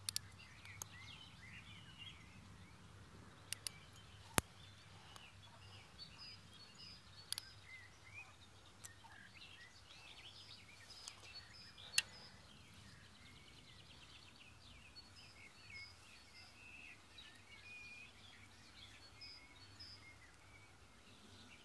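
Faint birdsong: many small birds chirping and singing continuously, over a low steady hum, with a handful of sharp clicks scattered through.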